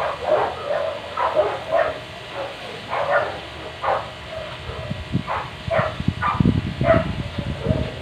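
A dog barking over and over in short barks, with a low rumbling noise coming in underneath from about halfway.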